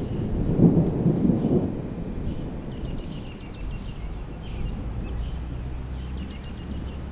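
Rolling thunder from a nearby thunderstorm: a low rumble that swells about a second in and dies away within a couple of seconds.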